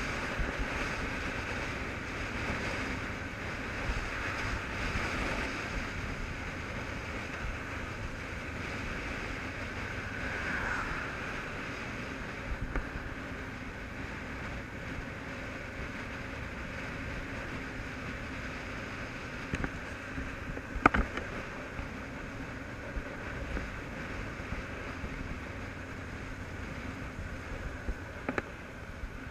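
Motorcycle engine running at a steady road speed under the rush of wind on a helmet-mounted camera, with a brief sharp knock about two-thirds of the way through.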